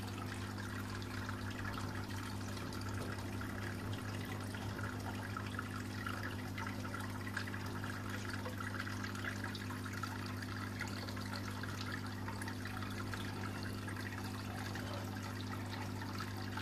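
Water pouring from a return pipe into a raised koi pond, splashing and trickling steadily, with a steady low hum underneath.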